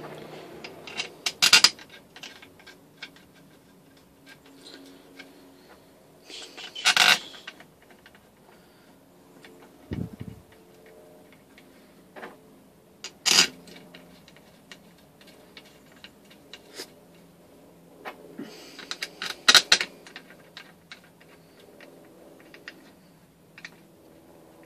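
Small metal bolts, washers and hand tools clinking and tapping as the side-case bolts of a small engine are fitted and tightened, with four louder bursts of clinks about six seconds apart and a dull knock about ten seconds in.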